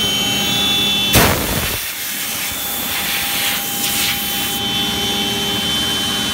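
CNC router spindle running with a steady high whine while its bit cuts a curved path through a wood sheet, with the hiss of the cut. A brief loud rush about a second in, and the cutting hiss grows louder for a while after.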